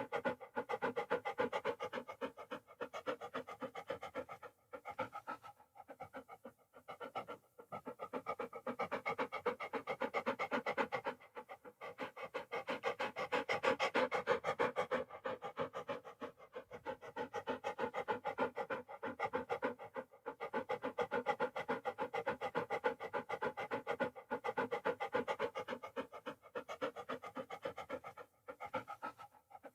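Dog panting: fast, rhythmic in-and-out breaths, broken by a few short pauses.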